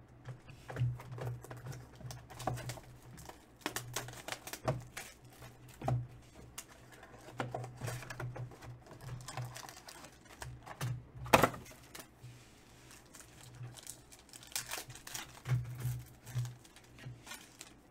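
Hands opening a cardboard box of trading cards and handling the foil card packs inside: a steady run of taps, clicks and crinkles, with one sharp snap about eleven seconds in.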